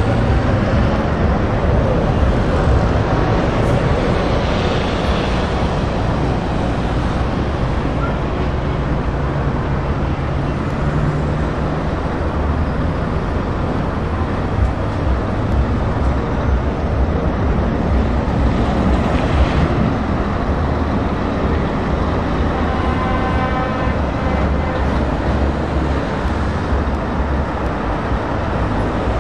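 Scania R520 V8 tractor unit driving slowly past and pulling away, its V8 diesel giving a steady low engine note, over the engines of other trucks and cars queueing behind.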